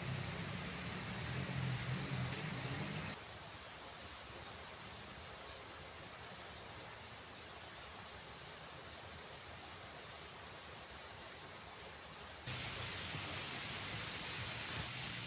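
Insects chirring in one steady, high, even tone. The quieter background beneath it changes abruptly about three seconds in and again near the end.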